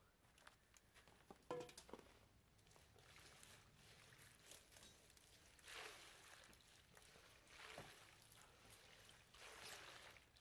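Faint sloshing and swishing of water as a leafy sauna whisk is worked in a metal bucket of water, in several soft swishes, the clearest after about six seconds. A faint clink about one and a half seconds in.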